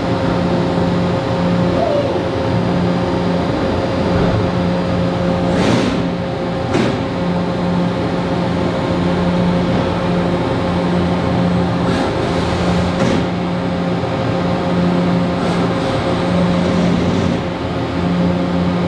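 Makino MAG3.EX five-axis horizontal machining centre with a 174 hp spindle running a cut: a loud, steady machine hum and spindle tone, with a lower tone that cuts in and out every second or two. A few brief sharp noises break through, twice close together about six seconds in and again around twelve to thirteen seconds.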